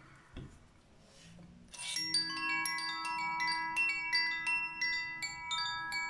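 Hand-held cylindrical tube chime rung from about two seconds in: bright notes struck in quick succession, several a second, each left ringing over the others. Faint handling clinks come before it.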